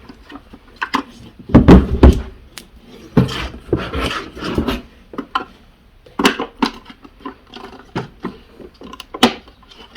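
Handling noises from plugging a power cable into a Starlink router: irregular plastic clicks, taps and rustles, with a few heavier thumps about one and a half to two seconds in and again about three seconds in.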